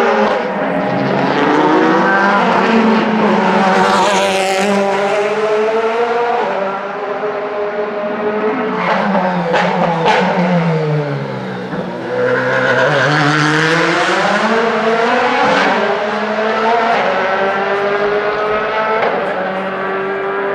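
Several DTM race cars' V8 engines running hard past one after another, their pitch rising as they accelerate and falling as they go by. The engine notes overlap, with a dip in pitch about twelve seconds in before another car climbs back up.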